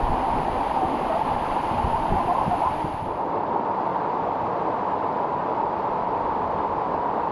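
Steady rush of a waterfall, a constant wash of falling water. Low buffeting on the microphone during the first few seconds stops partway through.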